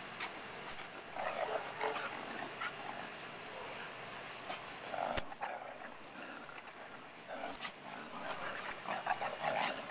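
Two dogs play-growling in short rough bouts while they wrestle, about a second in, around five seconds, and again near the end.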